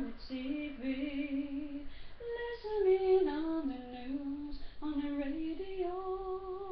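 A woman singing solo with no instruments, gliding through drawn-out notes and ending on one long held note.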